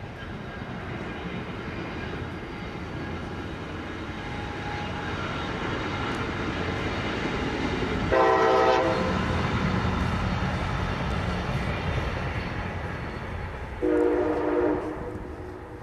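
A Brightline test train approaching and passing, its running rumble building and then fading, with two short horn blasts about six seconds apart, the second lower in pitch.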